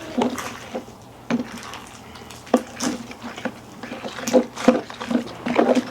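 Slime being squished and stretched by hand, making irregular wet, sticky clicks and pops.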